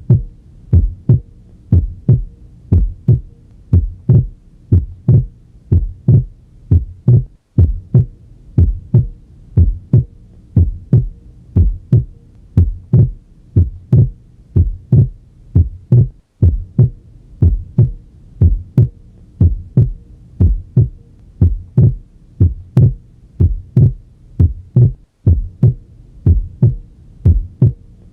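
Heart sounds heard through a stethoscope at the pulmonic area: steady low lub-dub beats about once a second, cutting out briefly three times. The second sound splits into aortic then pulmonary closure on inspiration and is single on expiration, a normal physiological split S2.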